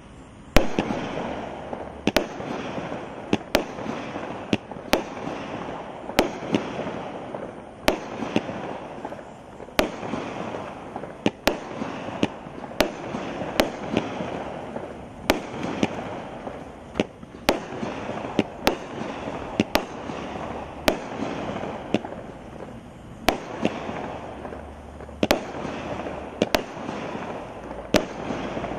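Power Blast Jubilee 200-gram, 25-shot consumer firework cake firing shot after shot. Each tube launches a flaming ball that ends in a sharp bang, about one every one to two seconds, with a continuous rushing noise between the bangs.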